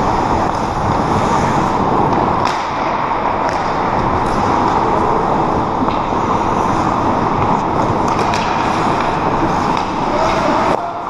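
Ice hockey play: skate blades scraping and carving the ice under a steady wash of rink noise, with a few sharp stick-and-puck clicks along the way.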